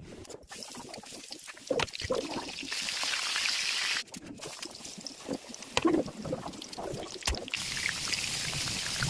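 Hissing sizzle of chicken frying in hot oil, in two stretches that start and stop abruptly, with scattered knocks and clatter of handling in between.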